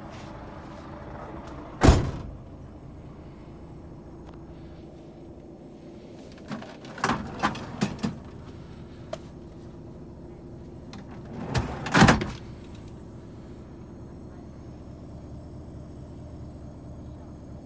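Several sharp knocks and thuds inside a truck cab over a steady low hum: one loud knock about two seconds in, a quick run of four or five smaller knocks around seven to eight seconds, and a loud double knock near twelve seconds.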